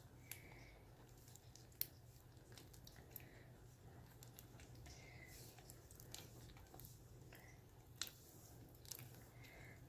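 Faint sticky squelches and clicks of floam slime, still sticky, being kneaded and pulled by hand, with a few sharper snaps about two and eight seconds in.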